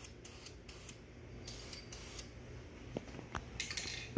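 Aerosol spray-paint can spraying in a series of short bursts of hiss, the strongest near the end, with a couple of light clicks in between.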